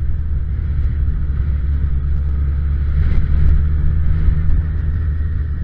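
Suzuki Bandit 1200's inline-four engine running steadily as the motorcycle rides along, with a low, even engine note and wind rushing over the microphone.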